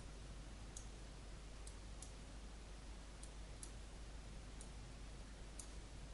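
Faint clicks of a computer mouse's left button, about eight at uneven spacing, over a steady hiss and low hum.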